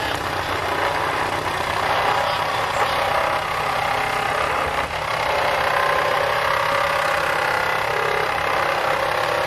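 An engine running steadily at idle, an even low rumble.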